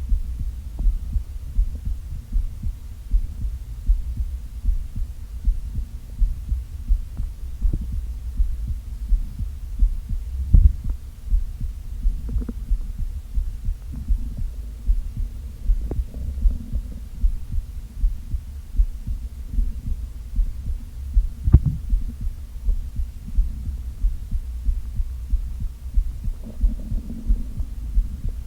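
Close-miked empty, hungry stomach: a regular low thumping runs throughout, with two sharper knocks, one about ten seconds in and one about twenty-one seconds in. Short gurgles come now and then, and a longer rumble comes near the end.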